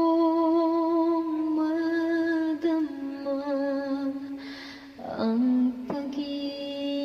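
A woman singing a cappella, unaccompanied, in long held notes that step slowly between pitches, with a quick breath taken a little past the middle.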